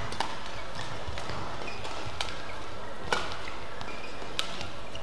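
Badminton rally: sharp cracks of rackets striking the shuttlecock, about one a second, the loudest about three seconds in, with brief shoe squeaks on the court mat over steady arena hall noise.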